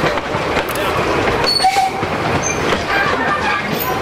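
Narrow-gauge railway carriages and brake van rolling past over pointwork, the wheels clattering steadily over rail joints, with a brief wheel squeal a little over halfway through.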